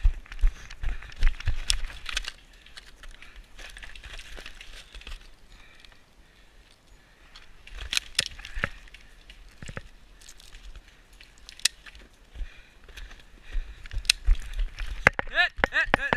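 Rustling and crunching of someone moving through dry leaves and brush, with low footfall thumps, gear rattle and a few sharp clicks. A shout breaks in near the end.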